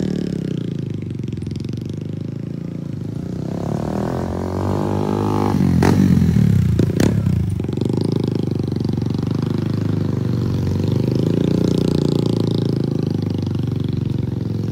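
Small motorcycle engine running as the bike is ridden past. Its revs climb about four seconds in, then fall back sharply. It is loudest around six seconds in, with a couple of short clicks, then settles to a steady pull.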